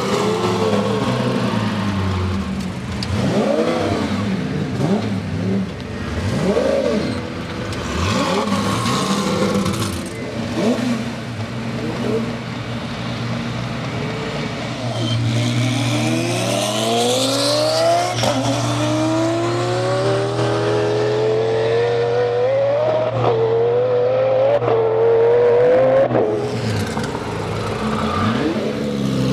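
Twin-turbo 5-litre Lamborghini V10 revving in short blips, then running at full throttle in one long climb in pitch for about ten seconds before backing off near the end.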